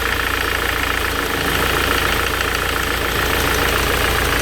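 Ford Transit 2.4 TDi diesel engine idling with a steady rhythmic knock. The knock is traced to the number-one cylinder, since it changes when that injector's line fitting is loosened: either a faulty injector or too much fuel going to that cylinder.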